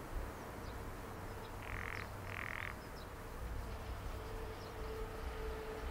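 Frogs croaking at a pond: two short raspy calls in quick succession about two seconds in, over a low rumble, with a faint steady hum coming in past the middle.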